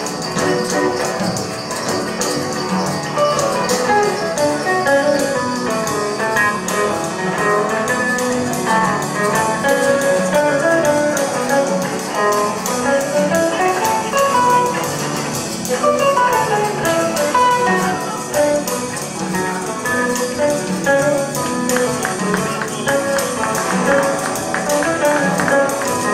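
Live band music: electric guitar playing quick runs that climb and fall, over drums and shaken hand percussion.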